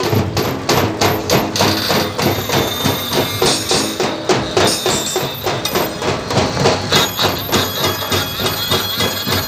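Band party drums and electronic drum pad playing a fast, even 'sambhal barik' rhythm, with sharp hits several times a second.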